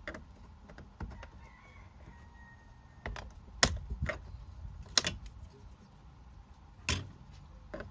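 Scattered clicks and knocks of hands and tools working the plastic cover off a Nissan Pathfinder's front door, with three sharp snaps about three and a half, five and seven seconds in.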